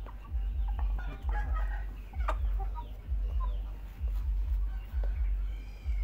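Chickens feeding on rice from metal pots: soft clucks and short calls, with beaks tapping on the metal, sharpest a little over two seconds in. A low rumble swells and fades underneath, about once a second.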